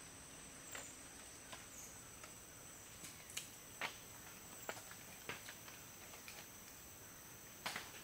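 Steady high-pitched insect trill, with irregular faint clicks and snaps scattered through it, the sharpest about three and a half seconds in and near the end.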